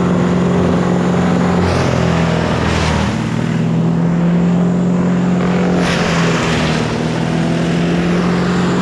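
An engine running steadily at a constant pitch, with brief hissing surges about two seconds in and again near six seconds.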